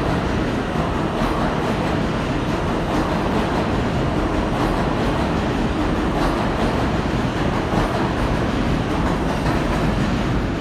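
Alstom R160 subway train running out of the station, a steady loud rumble of its wheels on the rails that holds even throughout.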